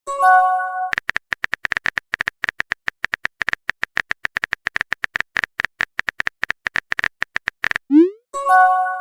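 Phone texting sound effects: a chime of several held tones lasting about a second at the start, then a long run of rapid keyboard tap clicks, then a short rising swoosh of a message being sent and the same chime again near the end.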